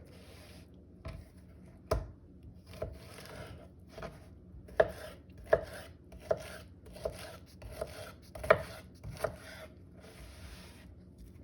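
Kitchen knife cutting fresh pineapple into small cubes on a cutting board. The blade knocks on the board about once every three-quarters of a second, with slicing and scraping sounds between the knocks, and stops shortly before the end.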